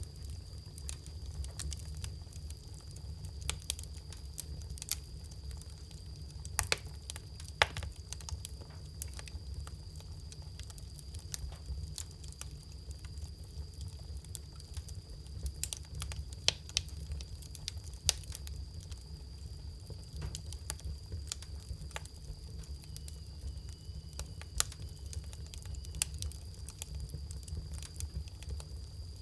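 Wood fire crackling, with irregular sharp pops and snaps, a few of them louder, over a low steady rumble.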